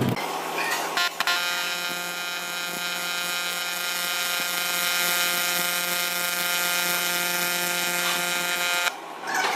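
AC TIG welding arc on aluminum ladder tubing, a steady high-pitched buzz. It strikes with a click about a second in, holds unchanged for about seven seconds, and cuts off near the end.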